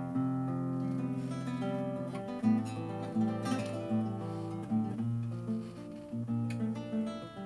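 Acoustic guitar played alone, strummed chords and picked notes changing in a steady rhythm: an instrumental passage of a song.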